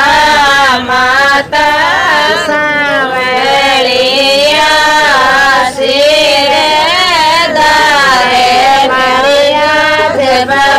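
A woman singing a devotional bhajan to Jeen Mata in a high voice, holding long, wavering notes and pausing briefly for breath twice between phrases.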